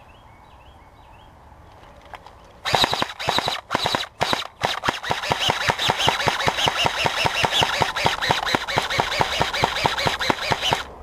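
Airsoft electric rifle (AEG) firing on full auto: a few short bursts about three seconds in, then one long rapid burst of about six seconds that cuts off near the end.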